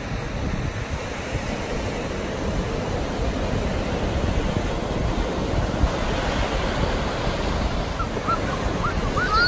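Ocean surf breaking and washing up a sandy beach, with wind rumbling on the microphone. A few short high-pitched cries come near the end.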